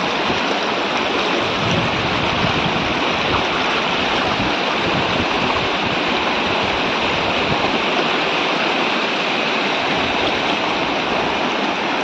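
Shallow river rushing over rocks and boulders in small rapids: a steady, even noise of running water.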